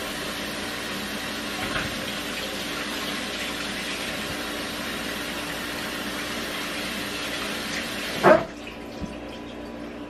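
Steady rush of running water, likely from a kitchen tap, cut off with a sharp knock about eight seconds in.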